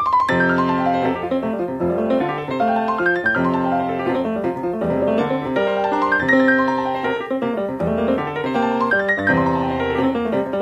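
Background piano music: a melody of quick notes over held chords, at a steady level.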